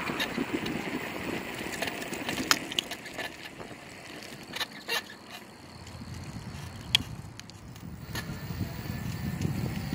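Bicycle rolling over pavement: steady tyre and wind noise with a low rumble that grows in the second half, broken by a few sharp clicks and rattles.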